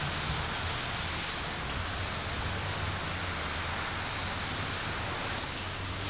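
Steady, unchanging hiss with a faint low hum underneath.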